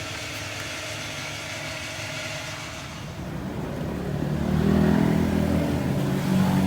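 Motor vehicle engine running steadily, then a lower, louder engine sound swells in about three seconds in and holds.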